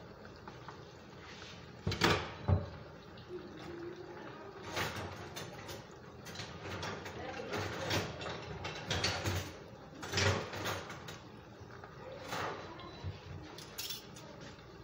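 Samosas deep-frying in a pan of hot oil with a steady sizzle, broken by a run of clattering knocks and clinks, the loudest two about two seconds in.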